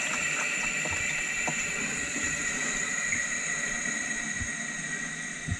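Hydraulic oil flowing back into the backstay reservoir as the cylinder's pressure is let off: a steady hiss with high whistling tones and small clicks.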